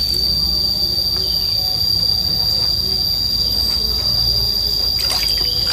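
A steady, high-pitched insect drone, one unbroken tone throughout. Water splashes lightly in a plastic basin as hands wash a snake, mostly near the end.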